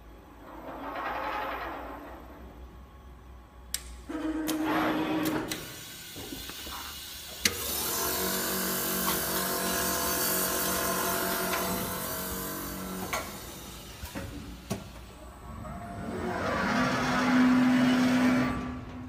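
Single-head quilting machine and its motors running, in several stretches of whirring and humming. The loudest stretch comes about 7 to 13 seconds in, and near the end a swell rises into a steady hum.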